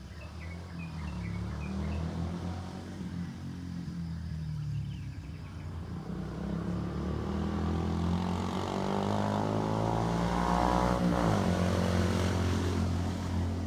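Propeller aeroplane flying past, its engine drone building steadily to a peak about eleven seconds in, then starting to fade. A few faint high chirps near the start.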